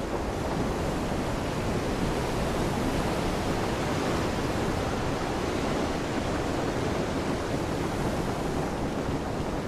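Heavy rain falling steadily, a constant hiss with no letup, with wind on the microphone adding a low rumble.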